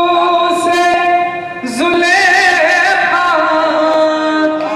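A man singing through a microphone in long, held notes, with a wavering, ornamented run about two seconds in and a short breath just before it.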